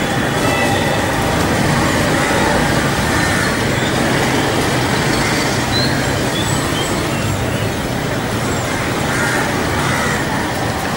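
Steady noise of urban road traffic.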